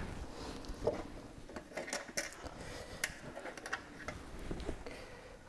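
Scattered light metallic clicks and taps of small steel parts being handled, as a trim ram pin and cotter pin are fitted on a sterndrive.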